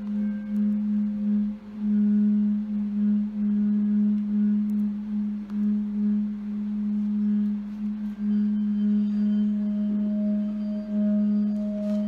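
Singing bowl sounding a steady low hum that swells and fades in slow pulses, with fainter higher overtones ringing above it.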